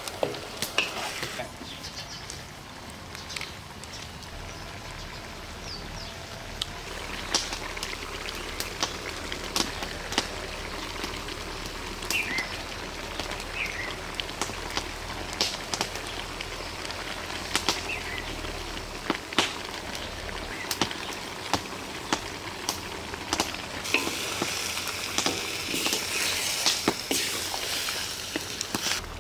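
Chicken pieces sizzling as they fry in a large steel wok over a wood fire: a steady hiss with frequent sharp clicks and crackles, stirred with a wooden spoon. The sizzle grows louder near the end.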